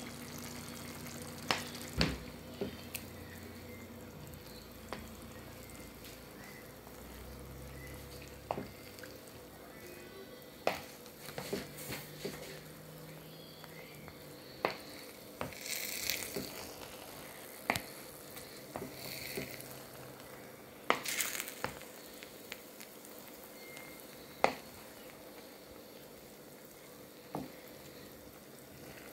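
A pot of jollof rice cooking with a faint, steady sizzle. Irregular sharp clicks and knocks break in, about a dozen of them, and there are a few short hisses in the middle.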